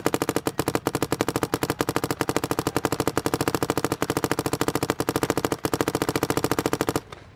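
Dye M2 MOS Air electronic paintball marker firing a rapid, even string of shots on semi-automatic, the trigger pulled as fast as the shooter can manage. The firing stops abruptly about seven seconds in.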